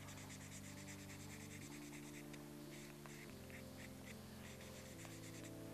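Felt-tip art marker scratching along the edge of a wooden ice-cream stick in quick short strokes as the edge is coloured in. Faint background music with slow chord changes underneath.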